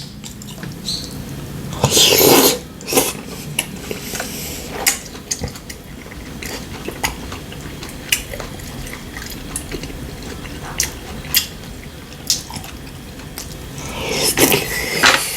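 Metal spoons and chopsticks clinking and tapping on bowls and dishes during a meal, in scattered short clicks. There are two louder noisy stretches, about two seconds in and near the end.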